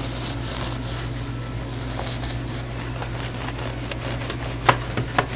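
Serrated bread knife sawing back and forth through a crusty whole wheat loaf, a rasping rub with each stroke. A few sharp clicks come near the end.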